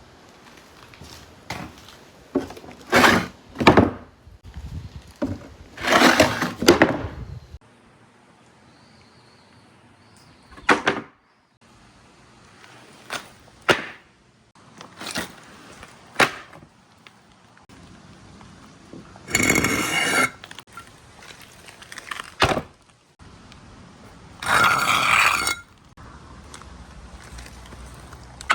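Marbles rolling and clattering down a marble run: sharp clacks as they drop and strike the track, with a few longer rolling runs lasting about a second each.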